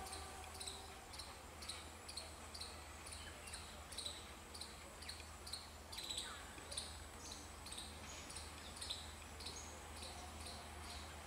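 The last note of a diesel locomotive's horn dies away right at the start. Then faint outdoor sound follows: a high, short chirp repeating about twice a second over a steady low rumble from the distant locomotive.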